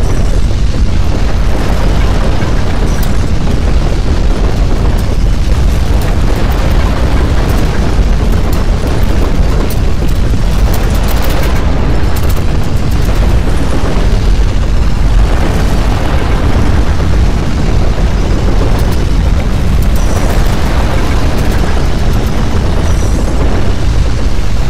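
Loud, continuous deep rumbling noise with a crackling edge, the sound of violent earthquake shaking from a great subduction-zone quake.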